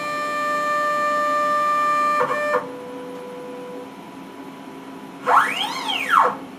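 Multicam MT22 CNC router's axis drive motors whining as the machine homes. A steady whine stops a little after two seconds, a lower tone runs on to nearly four seconds, and about five seconds in a short move sounds a pitch that rises and then falls as the axis speeds up and slows down.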